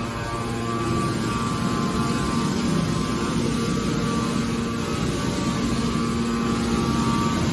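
Hydraulic metal baler running: a steady machine hum over constant mechanical noise. The hum tone weakens after the start and comes back strongly near the end.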